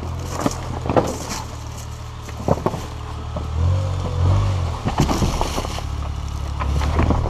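Suzuki Jimny JB23's 660 cc three-cylinder turbo engine running low and slow as the truck crawls over loose rock, with sharp knocks and crunches of stones under the tyres. The engine note swells briefly about four seconds in.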